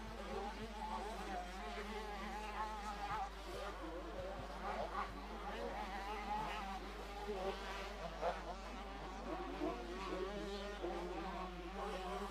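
Several motocross bikes heard from a distance: a thin, buzzing drone of engines whose pitch keeps rising and falling as the riders work the throttle around the track.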